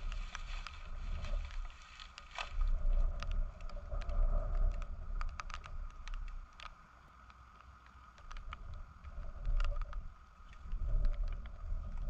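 Wind buffeting the microphone in gusts, easing off for a couple of seconds in the middle, with scattered light crackles and snaps of paper and dry twigs being handled as kindling.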